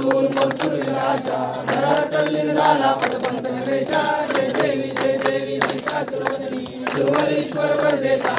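A crowd of devotees singing a Hindu devotional hymn to Ganesh together in unison, a group aarti, with sharp hand claps now and then.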